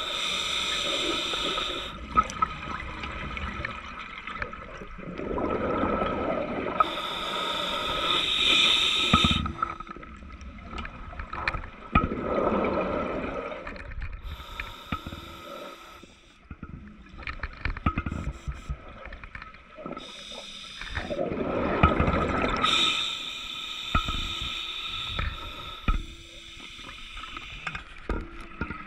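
Underwater scuba breathing through a demand regulator: slow breaths, each a steady hissing inhale followed by a rush of exhaled bubbles, about three cycles, with small clicks and knocks between.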